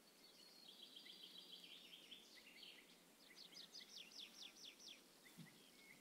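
Faint songbird calls over quiet outdoor background: a twittering trill, then a quick run of about eight down-slurred notes in a row.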